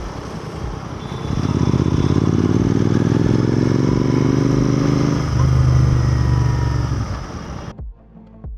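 Royal Enfield Continental GT 650's parallel-twin engine running under way, its note strengthening about a second in and dropping to a lower pitch about five seconds in. It fades and cuts off abruptly near the end, giving way to faint music with a beat.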